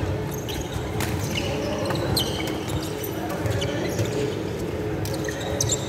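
Badminton hall ambience in a large, echoing sports hall: sports shoes squeaking briefly on the wooden court floor several times, with a few sharp taps of racket and shuttlecock and faint voices in the background.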